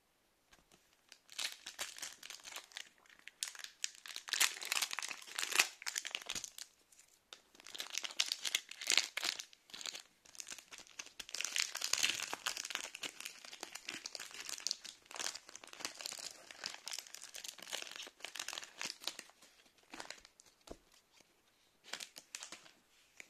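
Foil wrapper of a Pokémon card booster pack crinkling and tearing as it is handled and opened, a dense, irregular crackle with short pauses.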